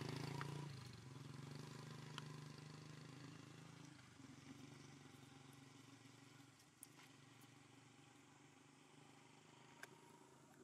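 Faint hum of a passing motor vehicle's engine, fading away over the first few seconds to a low drone, with a few faint clicks.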